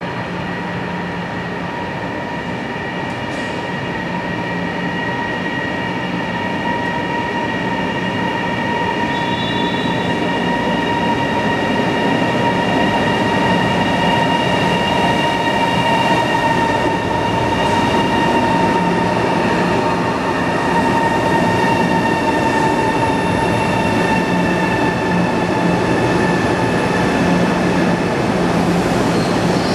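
China Railways CRH3 (Siemens Velaro) high-speed electric train pulling into the station and running along the platform. A steady whine of several high tones sinks slowly in pitch as the train slows, over a rumble that grows louder as it comes close.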